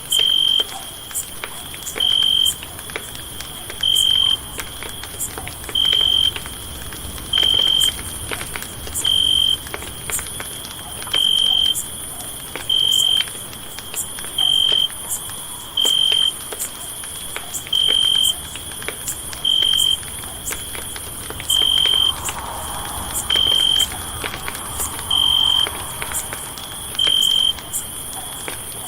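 Campfire crackling with scattered sharp pops under a steady high hiss, while a loud, high-pitched chirp repeats about every two seconds, each chirp about half a second long.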